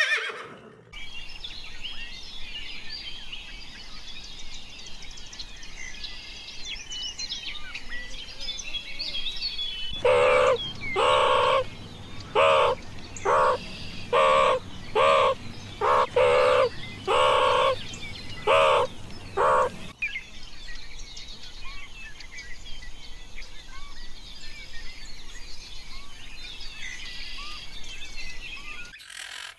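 Small birds chirping and singing. From about a third of the way in to about two-thirds, this is overlaid by a run of about a dozen louder, separate calls from a larger animal, roughly one a second.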